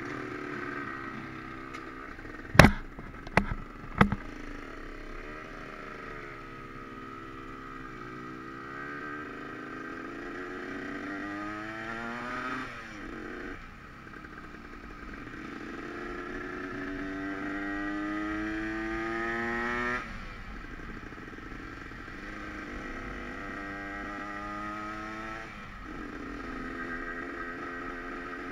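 Motorcycle engine pulling away and accelerating through the gears: its pitch climbs, drops sharply at a shift, climbs again, then settles to a steadier cruise. Three sharp knocks a few seconds in are the loudest sounds.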